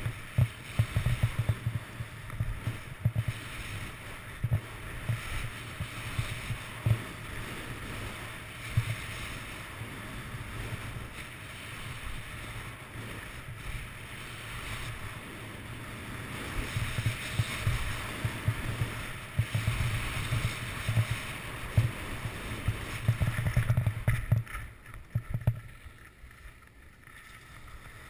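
Skis sliding and scraping over groomed snow, with wind buffeting a GoPro camera's microphone: a steady hiss with uneven low thumps. It dies down about four seconds before the end.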